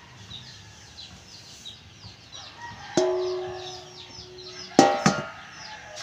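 A metal basin clanks against a feed bucket about halfway through and rings on with one steady tone for nearly two seconds, then clanks twice more, louder, near the end, as rice bran is emptied from it. Chickens chirp in quick, repeated high peeps through the first half.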